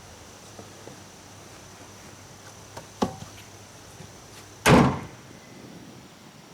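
A sharp click, then a second and a half later one loud slam-like bang that dies away quickly.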